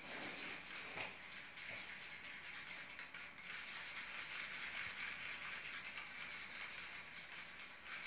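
Coffee grounds, water and glue being stirred into a paint in a small plastic cup: a steady, gritty scraping and rattling of the utensil against the grounds and the cup walls.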